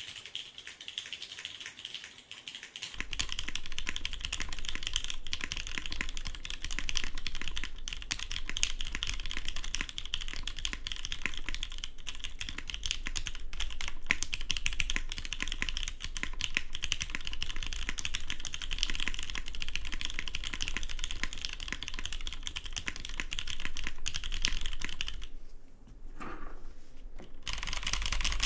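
Continuous fast typing on a Matrix Labs 8XV 2.0 TKL mechanical keyboard with an aluminium plate, GMK keycaps and lubed, filmed vintage 1986 Wyse Cherry MX Black linear switches. The keystrokes thin out briefly near the end, then pick back up.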